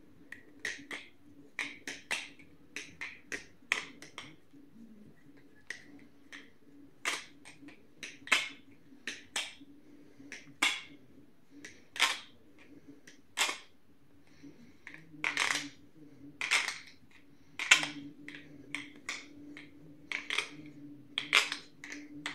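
Butterfly knife (balisong) being flipped: its handles and latch clack and click against each other in quick, irregular bursts, some sharp and loud, over a faint steady hum. The pivots are freshly tuned, tightened and lubed with KPL.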